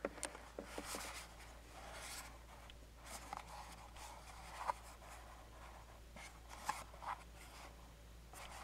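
Fingers handling and turning a small cardboard box: faint scratching and rubbing on the card, with a few light taps and clicks of fingertips and nails.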